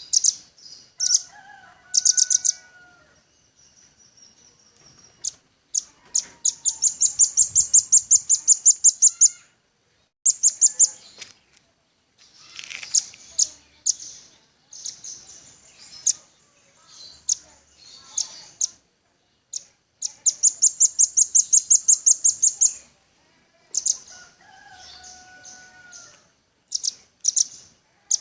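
Velvet-fronted nuthatch (rambatan paruh merah) calling in rapid, high-pitched trills of sharp notes, about eight a second. Two long trills run for about three seconds each, with short bursts and single calls between them.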